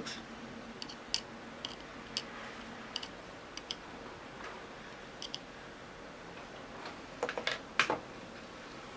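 Scattered light clicks and taps of small hand tools against a circuit board while flux is being applied, with a louder cluster of taps near the end.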